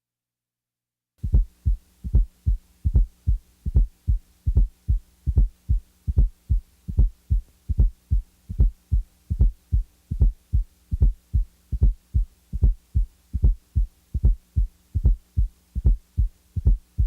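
Human heart sounds heard through a stethoscope: a regular run of low thuds, about two and a half a second, starting about a second in.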